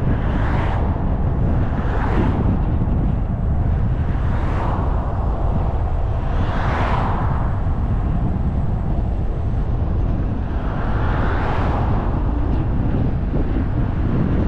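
Steady low wind rumble on the microphone and road noise from a moving car, with oncoming cars passing about five times, each a brief rising and falling hiss.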